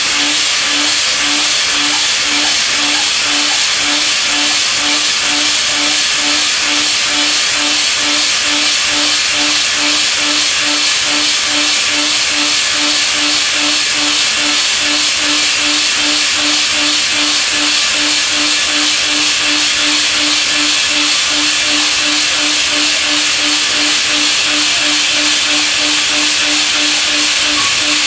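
Milling machine running through a high-feed milling operation: a loud, steady hiss with a low tone pulsing evenly about twice a second.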